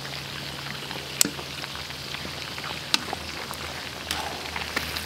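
Bone-in beef chops sizzling steadily as they fry in bubbling oil, with two sharp clicks about a second and three seconds in.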